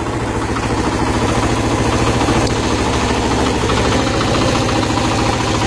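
Suzuki motorcycle engine, converted to run on gas from a water bubbler, idling steadily with an even pulse.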